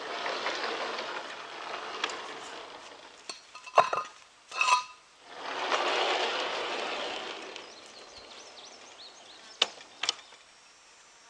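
Metal sawmill parts being handled: sharp metallic clinks, a couple ringing briefly, between two longer rushing, scraping noises of a few seconds each.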